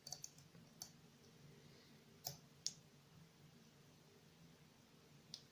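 Faint, sparse clicks of a lock pick and tension wrench working in the keyway of a Mindy padlock, a few small ticks spread over several seconds.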